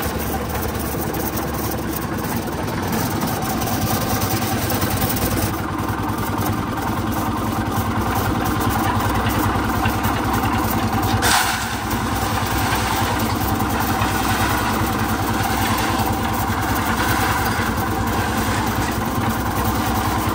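Portable concrete mixer running steadily, its drum turning a batch of wet concrete. A single sharp knock about eleven seconds in.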